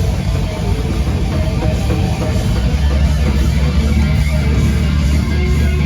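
A live band playing loud distorted electric guitar, with a steady low bass note coming in and holding from about two and a half seconds in.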